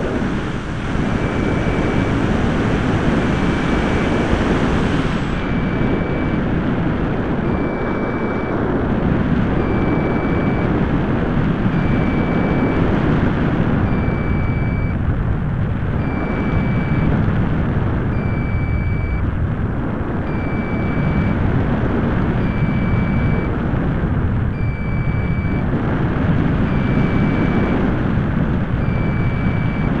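Air rushing over the microphone of a keychain spy camera riding on an RC plane in flight, a loud steady rumbling rush, with faint short electronic tones repeating about once a second.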